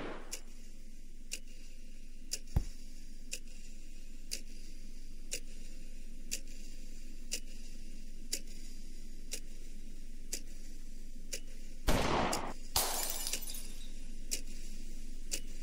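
A clock ticking about once a second over a low steady hum, with a single sharp knock about two and a half seconds in. About twelve seconds in, a loud crash of breaking glass, followed by a second shorter burst.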